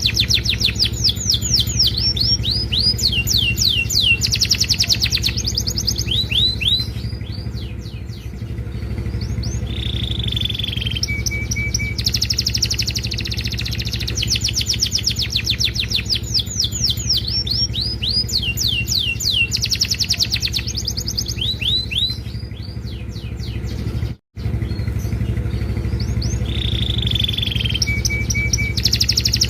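Domestic canary singing a long, varied song of fast rolling trills, a held high whistle and short piping notes, over a steady low hum. The same song sequence repeats about every 14 seconds, and the sound cuts out for an instant about 24 seconds in.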